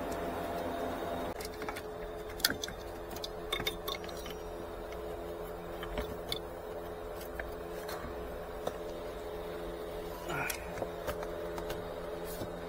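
Scattered plastic clicks and knocks as a car's cabin blower motor is pushed into its HVAC housing and twisted to lock it in, over a steady low hum.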